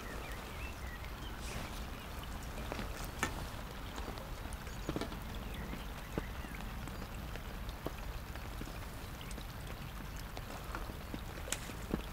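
Steady rain falling on a fishing umbrella overhead and on the lake surface, with scattered sharp clicks of single drops.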